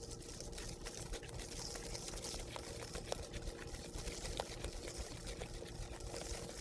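A light wire whisk mixing flour into a wet batter of pumpkin puree and eggs in a bowl: soft wet stirring with small irregular taps of the tines against the bowl.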